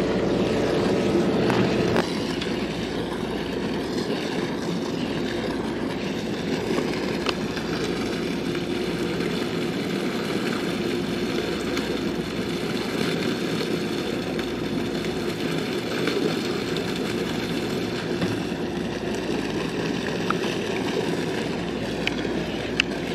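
Sportfishing boat's engine running with a steady, unbroken drone.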